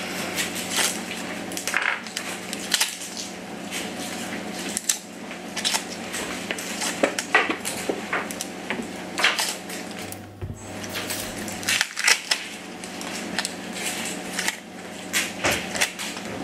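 Dry papery onion skin being peeled off by hand, crackling and crinkling in irregular little snaps, over a steady low hum.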